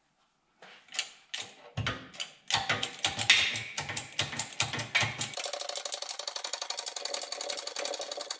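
Hydraulic shop press with a bottle jack being pumped by hand to press a Datsun 280Z piston pin into its connecting rod. Scattered clicks and knocks at first, then from about five seconds in a fast, steady metallic ratcheting chatter as the pin is driven home.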